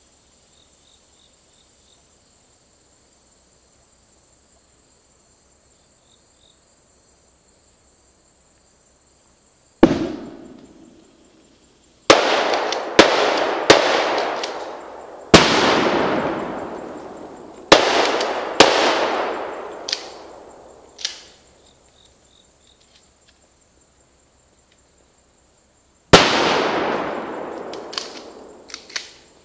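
Pyrotechnic IED-simulator charges detonating, each a sharp bang that trails off in a long echo through the woods: one blast about ten seconds in, a quick run of six or seven more, then another blast near the end followed by smaller sharp pops. A steady high insect drone sits under the quiet stretch before the first blast.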